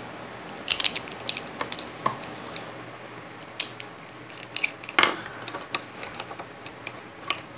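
Plastic Lego bricks clicking and clattering as they are handled, a string of sharp irregular clicks with the loudest about five seconds in.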